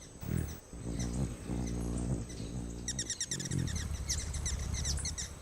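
Hummingbird wings humming low in short stretches that come and go. About three seconds in, a rapid run of high squeaky hummingbird chips begins.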